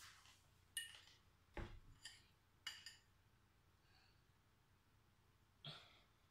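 A metal spoon clinking lightly against a glass jar: four short ringing clinks in the first three seconds, then a softer knock near the end.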